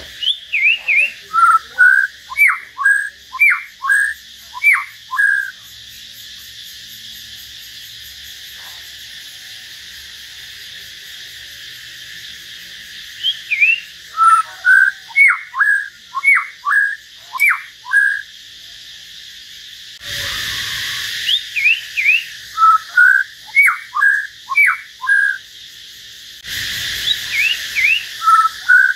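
Caged songbird singing in bouts of loud whistled notes: each bout is a couple of quick high rising notes, then a run of sharp falling whistles. There is a long pause after the first bout. A steady high hiss runs underneath, and a rushing noise comes twice near the end.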